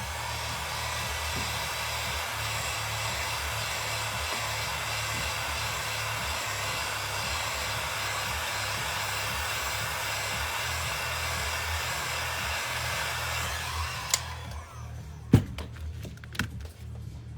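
Electric hot-air blower running steadily, heating the iPhone to soften the adhesive under the battery; it switches off about 14 seconds in, followed by a few sharp clicks and taps.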